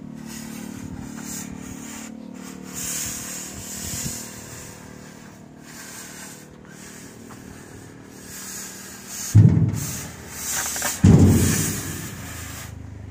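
Gas cutting torch hissing steadily while it cuts through a car's steel body. Two loud rushing bursts come in suddenly about nine and eleven seconds in.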